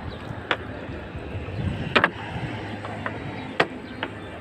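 Three sharp knocks about a second and a half apart on a small fishing boat during net hauling, over a steady low hum.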